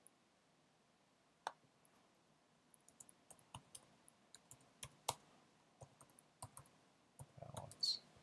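Faint computer keyboard keystrokes: one click about a second and a half in, then a quick run of a dozen or so key clicks as a short phrase is typed.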